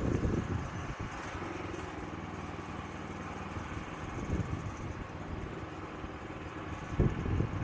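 Sawmill engine running steadily, with short louder surges at the start, about four seconds in and near the end.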